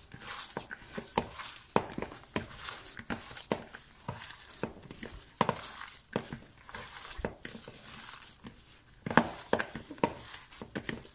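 A hand kneading minced meat with chopped green pepper, garlic and spices in a bowl: irregular soft clicks and knocks as the fingers work the mixture against the bowl, a little busier near the end.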